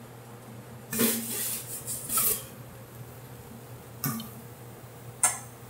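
Kitchen clatter of pans and utensils being handled: a rattling burst about a second in, a single knock about four seconds in and a sharp click near the end.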